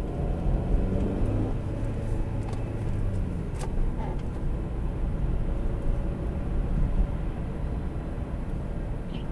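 A car driving and picking up speed, with steady engine and tyre rumble heard from inside the cabin through a dashcam microphone, and a few faint clicks in the first half.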